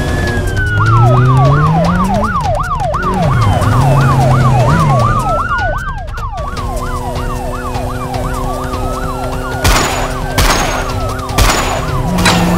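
Police siren sound effects switching between a fast yelp and a slower rising and falling wail, with a motorcycle engine revving up underneath early on. Three sharp bangs come near the end.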